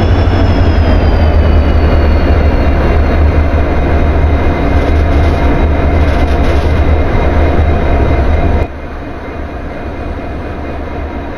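Train sound effect: a loud, steady rumble of a train running, with a faint high whine that slowly falls in pitch. A bit over eight seconds in it cuts off abruptly to a quieter rumble.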